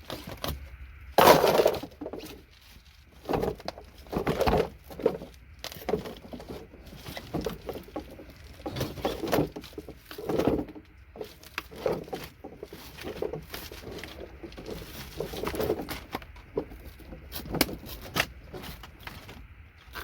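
Circuit boards being snapped and cut apart by hand with cutters: repeated sharp cracks and clicks at an irregular pace, the loudest crack coming about a second in.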